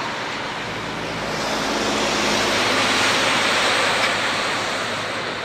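A road vehicle passing on the street: tyre and engine noise swelling to a peak about three seconds in, then fading.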